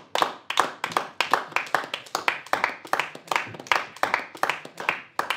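Hand clapping: a quick, uneven run of sharp claps, about four a second.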